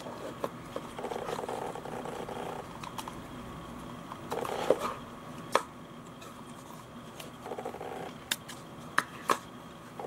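Scroll wheel of a Rapoo M100 silent-click wireless mouse rolled in three short bursts of fine ratcheting clicks, with several sharp single clicks from the mouse in the second half.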